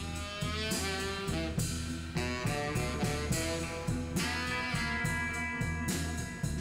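Instrumental background music with a steady drum beat and sustained pitched notes.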